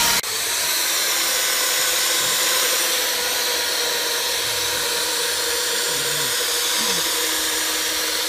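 Handheld electric wall-plastering float running steadily as its rotating disc smooths cement render: a steady motor whine over a strong hiss, with a brief break just after the start.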